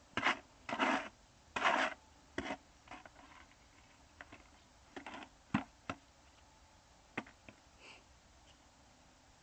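Masonry work: short, irregular scraping strokes on stone and mortar, the loudest in the first two seconds, then a few sharp knocks.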